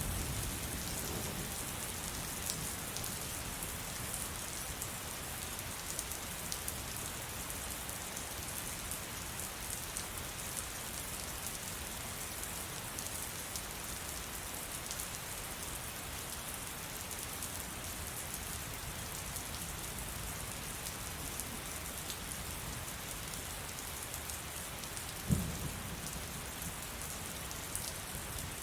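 Heavy rain falling steadily. A low thunder rumble dies away in the first second or two, and a single short, low thump comes near the end.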